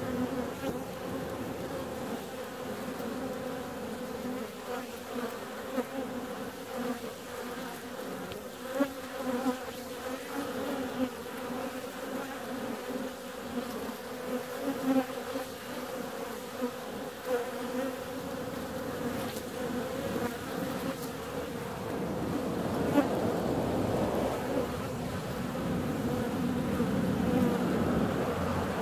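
Honeybees buzzing as they fly in and out of a hive entrance: a steady hum, with short louder buzzes as single bees pass close by, growing denser and louder for the last few seconds.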